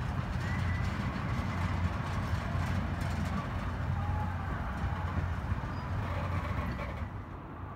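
Canadian Pacific Holiday Train passenger cars rolling past, a steady low rumble of steel wheels on the rails as the last car goes by. The rumble drops away suddenly about seven seconds in.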